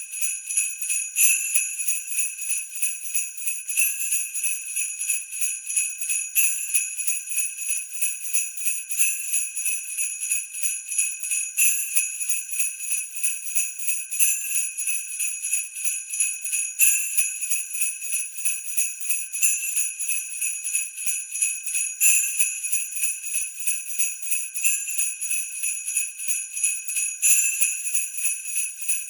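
Sleigh bells shaken continuously in a steady rhythm, a bright high-pitched jingling with a stronger shake about every two and a half seconds.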